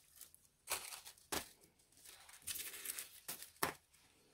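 Thin plastic Stampin' Up! decorative masks (stencils) crackling and rustling as they are handled and flexed, in a handful of short crinkly bursts.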